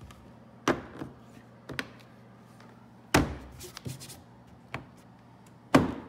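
Tesla Model S rear door trim panel being pressed home by hand, its clips snapping into the door: four sharp knocks, the loudest about three seconds in and another near the end.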